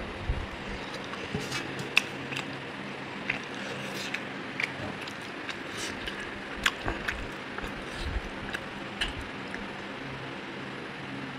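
Close-up eating sounds of chicken and rice being chewed: many short wet smacks and clicks at an irregular pace, over a faint steady hum.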